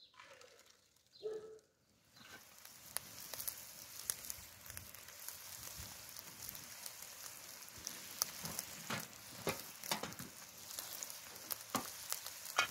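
Ground beef and onion frying in a large black pan over a wood fire: a steady sizzle with frequent sharp crackling pops, starting about two seconds in.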